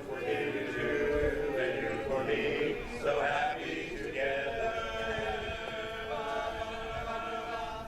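Male barbershop chorus singing a cappella in close harmony, then holding one long chord from about halfway through.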